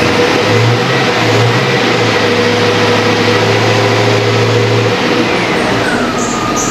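GMC truck engine running, with its accessory belt drive squeaking; a thin tone over the engine noise drops in pitch about five seconds in. The owner is hunting for the source of the belt squeak after fitting a new idler pulley.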